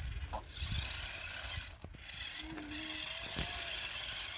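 Toy RC monster trucks driving on asphalt: the small electric motors and plastic gearboxes whir steadily, with a brief click about three and a half seconds in.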